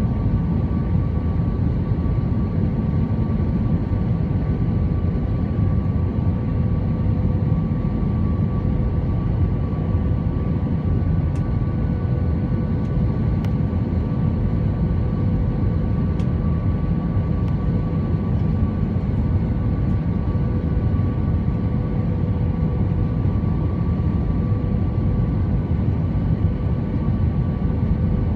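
Steady cabin noise inside an Airbus A320-214: an even rumble of its CFM56 engines and airflow, with a few faint steady whining tones over it and no change in thrust.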